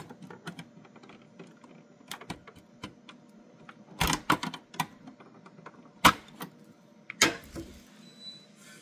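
Plastic clicking and knocking from a flat pry tool working at the snap clips of a GE Mac2000 ECG's plastic top cover. A cluster of louder knocks comes about four seconds in, and single sharp knocks follow about six and seven seconds in, with small ticks in between.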